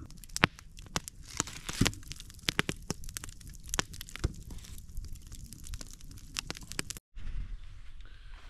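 Wood campfire crackling, with irregular sharp snaps and pops. It cuts off suddenly about seven seconds in, followed by a quieter, steadier background.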